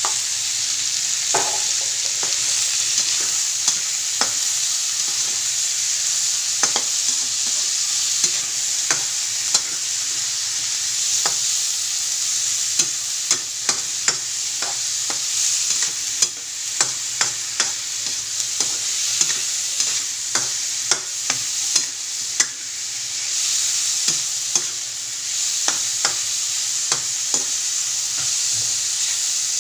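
Pork, onion and garlic sizzling in a metal wok while a metal spatula stirs them, clacking and scraping against the pan many times over a steady frying hiss.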